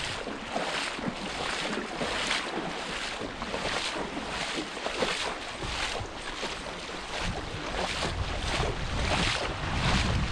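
Footsteps and clothing rustle of a hiker walking on a hill trail, about two steps a second, with some wind buffeting the microphone.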